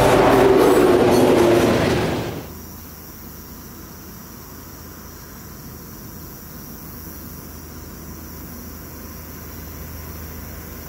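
Freight train of covered hopper cars rolling past close by: a loud rumble of wheels on rail with some steady squealing tones. About two seconds in this cuts off abruptly to the much quieter low rumble of a diesel locomotive approaching from a distance, with a steady high-pitched hum behind it.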